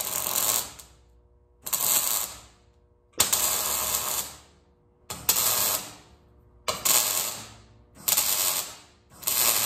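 Wire-feed MIG welder laying short tack welds on a steel frame: seven separate bursts of arc crackle, each under a second, with brief pauses between them.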